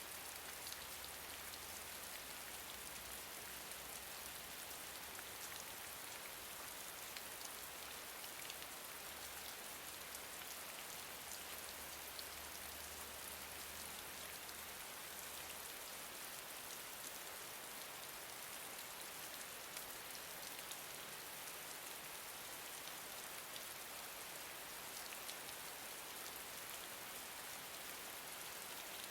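Gentle steady rain falling on a surface, many small drops pattering in a dense even hiss with individual droplet ticks.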